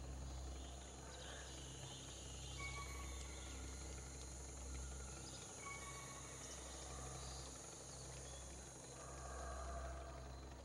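Faint forest ambience: a thin high insect-like haze over a steady low rumble, with a short whistled call heard twice, about three seconds apart.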